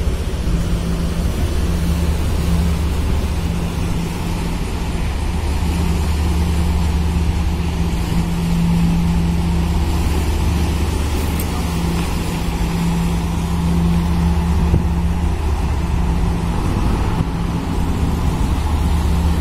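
Engine of a moored harbour tugboat running steadily at idle: a deep, continuous hum that swells and eases a little every few seconds.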